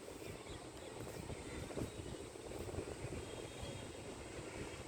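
Faint, steady low rumble of distant city traffic.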